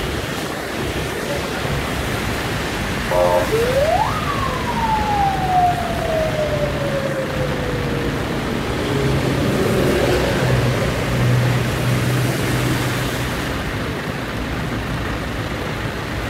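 Steady rush of rain and tyres on a wet road, with a short horn toot about three seconds in. A siren then wails once, rising quickly and falling slowly over about four seconds.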